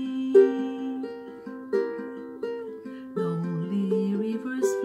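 Ukulele playing slow plucked chords, a new chord about every three-quarters of a second.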